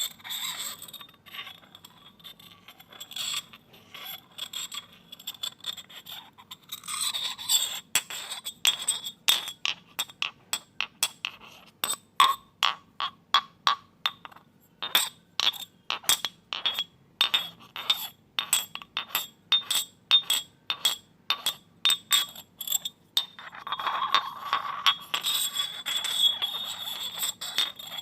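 Glass clinking and tapping, with many sharp separate chinks, about two or three a second through the middle. Near the start and end there are ringing scrapes of glass on glass.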